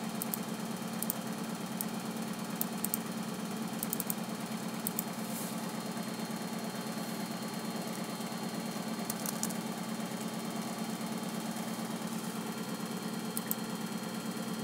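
A steady low mechanical hum with a fast, even flutter, under faint sharp clicks from operating the laptop. The clicks come every second or so early on and again around nine and thirteen seconds in, many of them in quick pairs like double-clicks.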